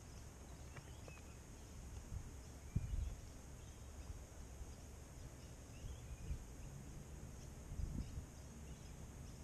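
Quiet outdoor ambience: a low rumble with a couple of soft bumps, about three seconds in and near the end, and a few faint bird chirps.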